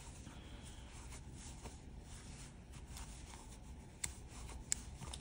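Faint rustle of acrylic yarn being worked with a soft-grip crochet hook while double crocheting, with a few small clicks over the last two seconds.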